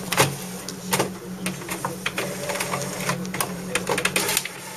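Irregular clicks and taps of hard plastic parts being handled, over a steady low hum.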